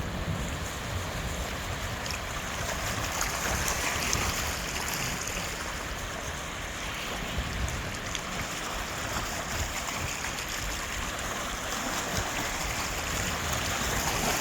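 Sea waves washing in and out over a pebble beach, a continuous surging rush that swells and eases, with small clicks of the stones mixed in.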